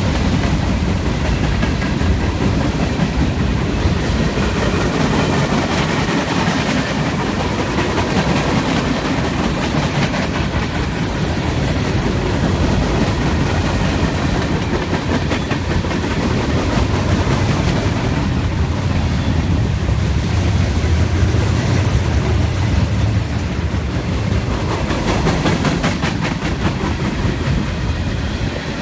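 Freight train cars (covered hoppers, tank cars, then container cars) rolling steadily past, a continuous low rumble with steel wheels clattering on the rails.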